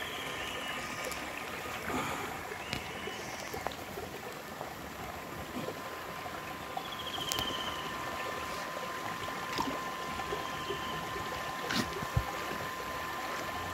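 Shallow muddy water trickling and sloshing in a drained concrete fish pond, over a steady faint hum, with a few short high chirps and scattered light clicks.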